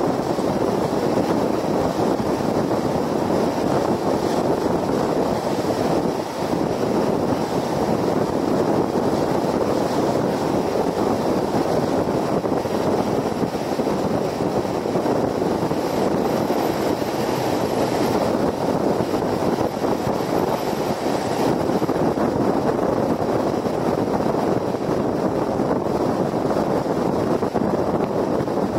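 Steady road and wind noise of a car cruising at highway speed, an even rush of tyres and air.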